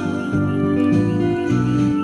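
Instrumental song accompaniment with steady held notes and soft plucked tones, a short break between the sung vocal lines.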